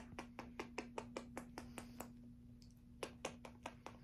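A kitten licking, a run of quick small wet clicks about five a second, pausing for about a second halfway through, over a faint steady hum.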